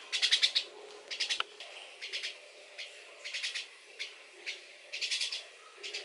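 Young starling calling: short harsh, buzzy calls repeated about every half second to a second, the loudest right at the start.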